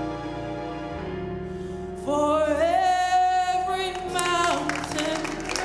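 Gospel music: sustained instrumental chords, joined about two seconds in by a strong, loud singing voice with vibrato.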